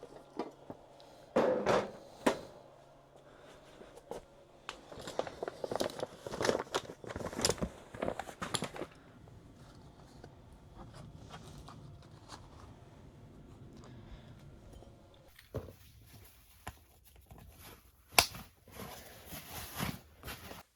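Rustling, scraping and knocking of objects being handled, with a few sharp knocks.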